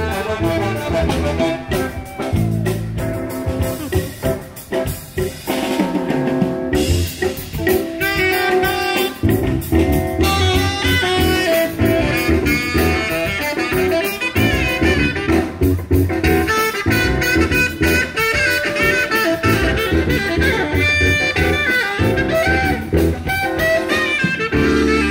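Live band playing music without pause.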